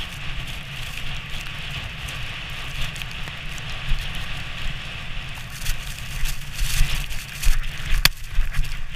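Runners of a wooden sledge hissing and scraping over packed snow at speed, with a steady low rumble underneath and one sharp click about eight seconds in.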